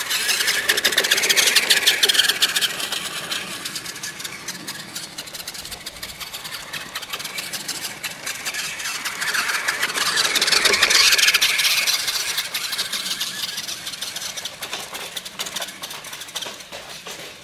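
Battery-powered RC trucks driving across grass: the electric motor and gears whir, swelling loudest twice as a truck runs close by.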